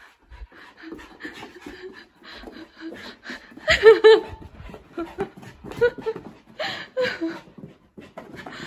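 An excited dog panting, mixed with a woman's short bursts of laughter.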